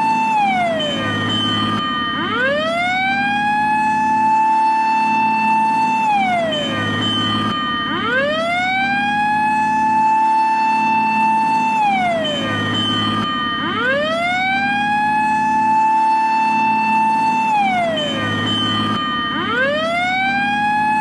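Japanese fire engine siren wailing in long cycles: the tone sweeps up quickly, holds a steady high note for about four seconds, then slides down, repeating about every six seconds. A steady low hum runs underneath.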